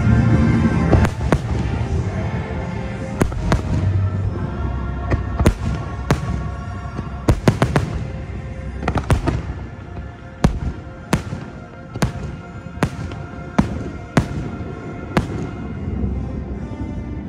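Fireworks shells bursting over an orchestral show soundtrack: a flurry of sharp bangs, then a run of single bangs spaced about half a second to a second apart that dies away near the end.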